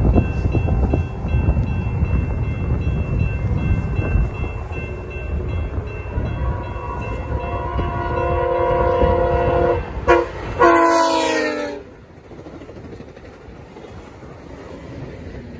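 VIA Rail Siemens Venture passenger train sounding its multi-chime horn as it closes on a crossing. There is a long blast from about six seconds in, then a shorter blast near eleven seconds whose pitch drops as the train passes. The low rumble of the train under the horn falls away quickly once it has gone by.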